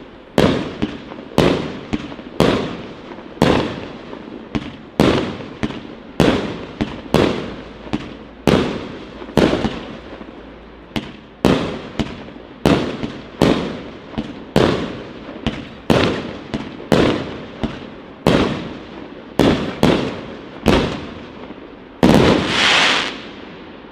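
A 25-shot 1.2-inch consumer fireworks cake firing shot after shot, about one a second, each a sharp report that dies away. The last shot, near the end, is louder and longer.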